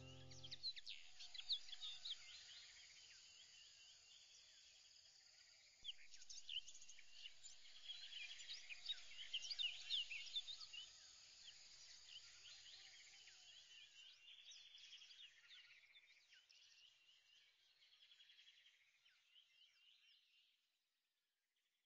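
Faint chorus of small birds chirping, many quick high chirps overlapping, busiest in the middle and fading out near the end.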